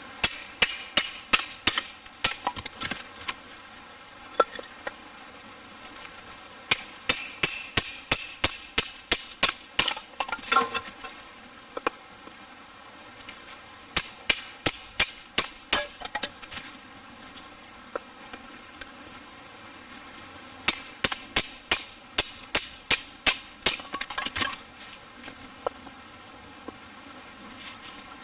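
Hammer driving a metal tent stake into the ground: four runs of quick blows, about four a second, each blow with a short high metallic ring.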